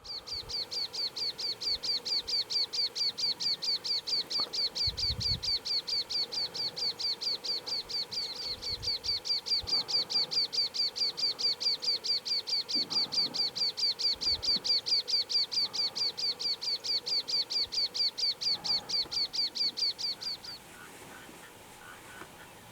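Rufous-eared warbler singing: a long, even run of high, thin repeated notes, about four a second, that stops near the end.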